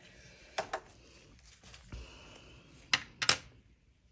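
Small hard objects handled on a tabletop: a pair of light clicks under a second in, then two louder sharp clicks about three seconds in.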